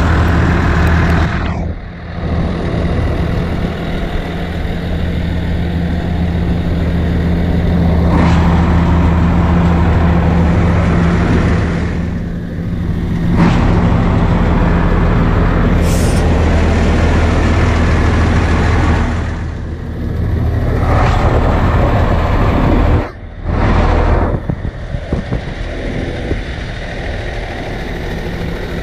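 Cummins ISL straight-six diesel of a 2010 Peterbilt 335 rear-loader garbage truck idling steadily: a deep even hum under a rushing noise that dips briefly a few times.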